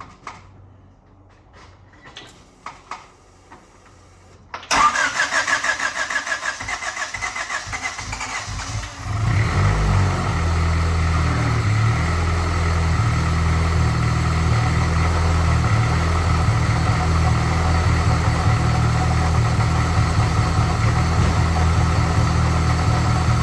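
Turbocharged Honda Civic cold-started: the starter cranks the engine in a fast, even rhythm for about four seconds before it catches, then it settles into a steady idle. A few small clicks come before the cranking.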